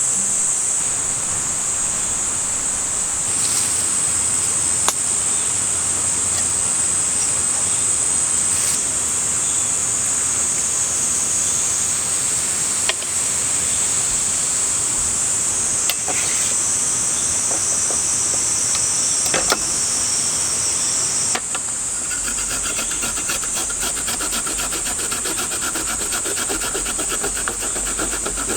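Cicadas singing in a steady, high, continuous chorus. About three quarters of the way in it switches to a rapid, pulsing, rasping call. A few light clicks sound over it.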